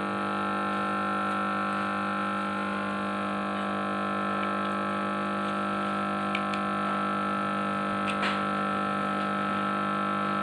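Steady electrical hum made of several held tones, with a couple of faint clicks about six and eight seconds in.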